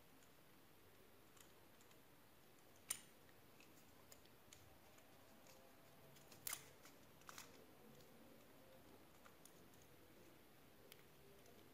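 Faint clicks and taps of hard plastic as a BM700 condenser microphone is handled and pushed into its plastic spider shock mount: one sharp click about three seconds in, a small cluster of clicks a little past the middle, and scattered light ticks over a near-silent background.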